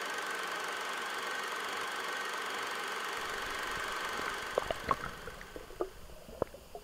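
Sea ambience picked up by a diving action camera: a steady hum with a thin whine, which gives way about four seconds in to quieter scattered clicks and knocks as the diver goes underwater.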